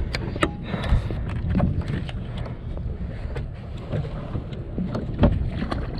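Wind rumbling on the microphone over water sloshing against a drifting boat's hull, with scattered small clicks and knocks.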